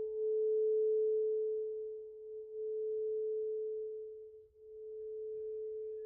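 A singing bowl's sustained, nearly pure tone on one pitch, swelling and dipping in slow pulses about every two seconds.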